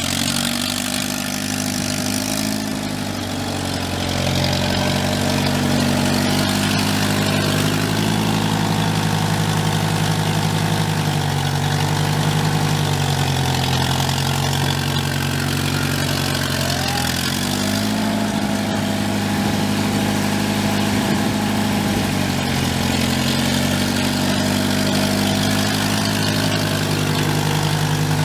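International 354 tractor's four-cylinder gas engine running steadily as the tractor drives. The engine speed dips and picks back up twice: a few seconds in and about halfway through.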